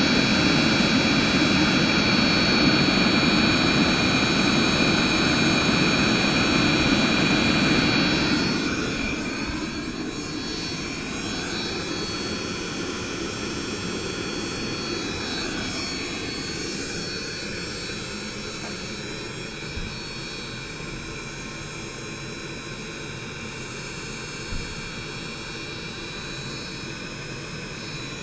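Diesel hydronic heater running: a steady high whine over a rushing roar, dropping to a lower level about eight seconds in and then holding steady.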